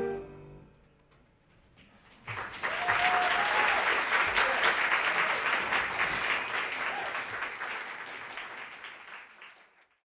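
The ensemble's final held chord of strings, saxophone and brass dies away. After a short silence, the audience breaks into applause, which slowly fades out near the end.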